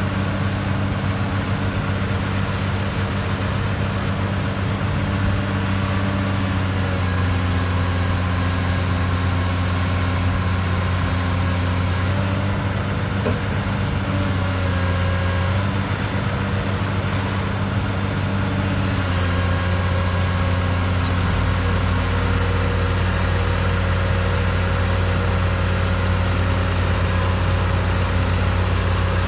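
Diesel engines of a Komatsu hydraulic excavator and a tractor running steadily, with a strong low hum whose note shifts a few times as the excavator's bucket pushes the tractor's trailer through the mud.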